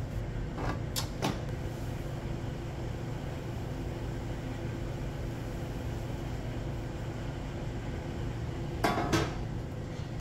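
Steady low hum of a welding shop with a few short metallic knocks and clatters from handling the submerged arc welding gear: two about a second in and a louder pair near the end.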